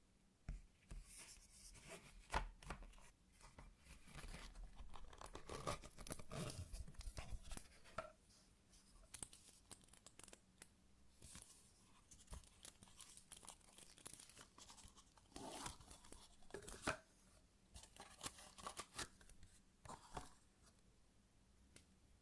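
Quiet, irregular crinkling and tearing of thin plastic packaging, in clusters of sharp crackles with short pauses between them.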